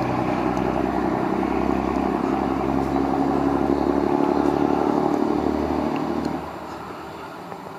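Train engine running hard as the train pulls away from the station, then dropping off sharply about six and a half seconds in.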